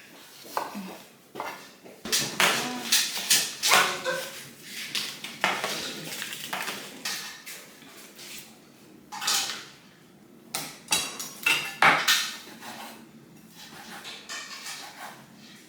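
Dishes and cutlery clinking and clattering, a run of irregular knocks and clicks.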